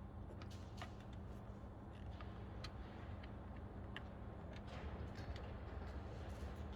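Light, irregularly spaced clicks and ticks of hand tools and small fittings being worked on a steering wheel, over a low steady hum.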